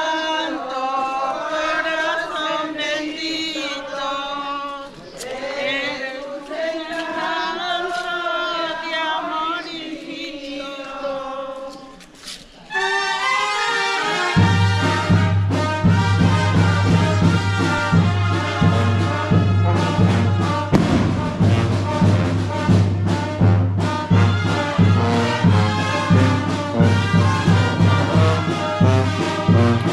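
Singing voices for the first part; then, after a short dip, a brass band strikes up, with a steady pulsing beat in the bass.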